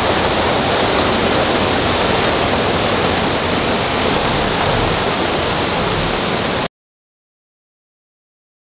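Steady rush of fast-flowing floodwater, which cuts off suddenly about two seconds before the end.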